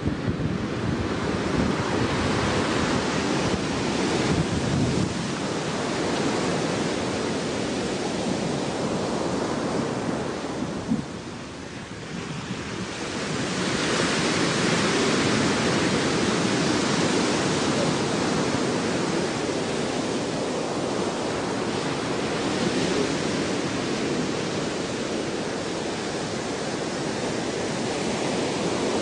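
Ocean surf washing continuously, with wind buffeting the microphone; the wash dips briefly about halfway through, then swells louder again.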